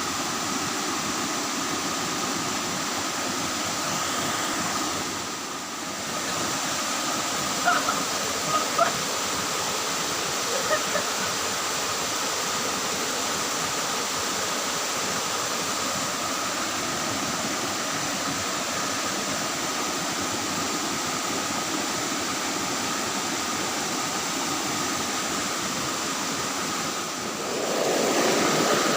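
Steady rushing of flowing water, like a stream or weir, with a few short chirps about eight to eleven seconds in.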